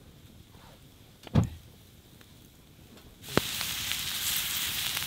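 A single dull, low thump about a second and a half in. From about three seconds in, onions and mushrooms sizzle steadily on a round grill grate over an open wood fire, with sharp crackles from the burning wood.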